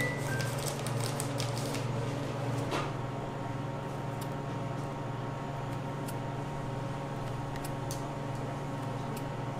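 A steady low hum, with scattered light clicks and handling noises from gloved hands working with a piping bag and steel scissors. The clicks are busier in the first few seconds and sparse after.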